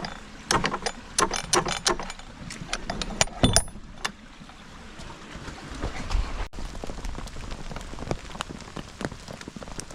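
Rain pattering steadily, with a run of loud, sharp, irregular taps and knocks in the first four seconds.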